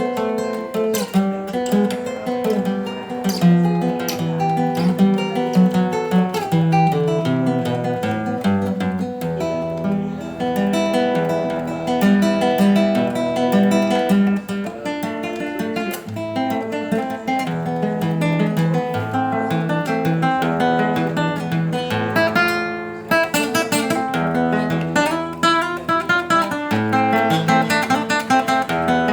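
Solo acoustic guitar playing an instrumental milonga, plucked bass notes under a melody line.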